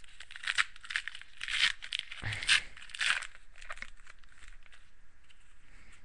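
A trading card pack's wrapper being torn open, with several short crinkling tears in the first three seconds or so, then only faint handling.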